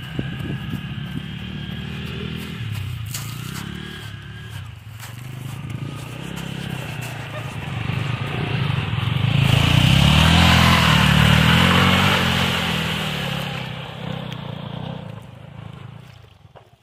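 Two single-cylinder sport motorcycles, a Pulsar N160 and a Yamaha R15 V3, revving hard as they churn through deep sand, their engine notes rising and falling. About halfway through, one bike ploughs through shallow river water and the water splashes loudly, the loudest part. The engines fade near the end.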